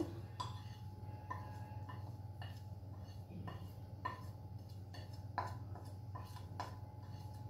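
Light clinks and scrapes of a steel spoon against a plate, coming singly at irregular intervals, as spice powder is pushed off the plate into the pan. A steady low hum runs underneath.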